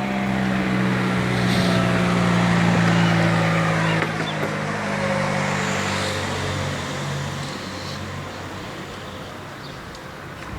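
A motor vehicle's engine running close by, growing a little louder during the first few seconds, then fading away.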